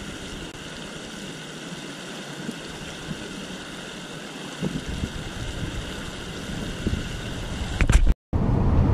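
Steady rush of water pouring over a concrete canal spillway. Near the end it cuts off abruptly and gives way to the steady low hum inside a moving vehicle.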